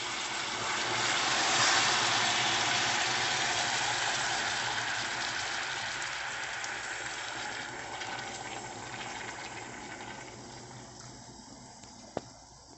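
Hot caramel in a pan sizzling and bubbling hard just after warm water is poured onto it. The sizzle swells about two seconds in, then dies away slowly as the caramel seizes hard on the bottom of the pan. One light knock near the end.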